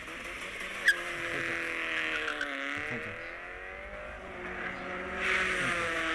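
Toy cars pulled by strings across a board, their plastic wheels making a rushing, scraping noise, with a wavering engine-like drone underneath. There is a sharp click about a second in, and the scraping grows louder near the end.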